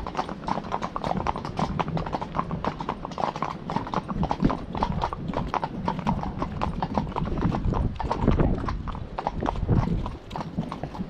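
Shod hooves of several ponies clip-clopping on a tarmac lane, a dense, uneven run of hoof strikes. The hoofbeats get quieter near the end.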